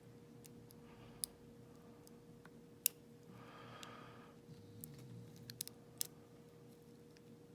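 Scattered small metallic clicks and ticks of a lock pick working the serrated pin stacks of a pin-tumbler padlock core under tension, one sharper click about three seconds in and a quick cluster a little later. A soft hiss about halfway through.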